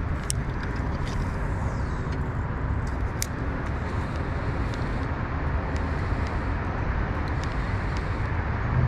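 Steady rushing roar of road traffic, with a few faint ticks over it.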